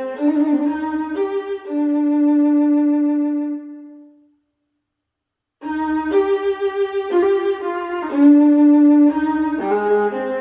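Violin music played back through Mission 701 bookshelf speakers: bowed notes, one long held note fading out about four seconds in, a short silence, then the playing starts again.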